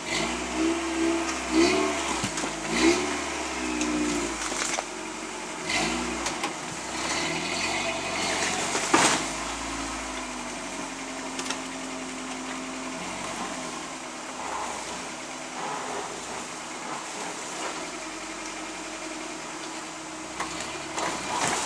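Lifted pickup truck's engine revving in repeated surges under load as it crawls over boulders, with a sharp bang about nine seconds in.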